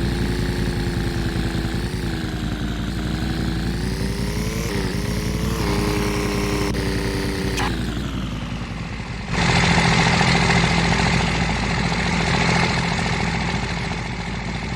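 A motor vehicle's engine running, its pitch rising and falling. About nine seconds in, the sound changes abruptly to a louder, hissier engine noise.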